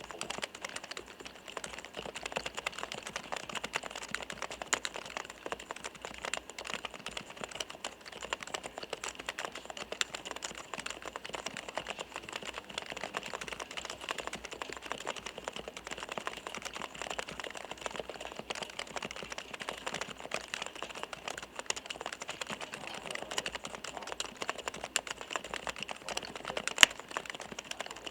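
Rapid, continuous typing on a Topre REALFORCE R3 keyboard with electrostatic capacitive switches. Each keystroke bottoms out with a soft, rounded clack (kotokoto). One stroke near the end is noticeably louder.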